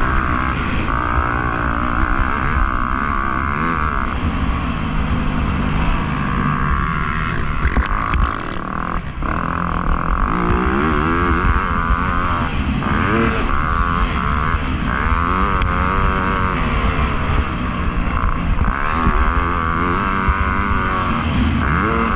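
Motocross bike engine running at race pace, revs rising and falling again and again as the rider works through the gears and the track. The revs drop briefly about eight seconds in before climbing again.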